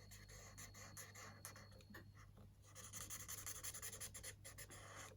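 Faint scratching of a colouring tool stroking across a colouring-book page, a little busier in the second half.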